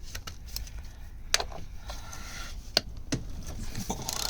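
A few sharp, separate clicks and knocks of hand tools being handled, over a low steady background hum.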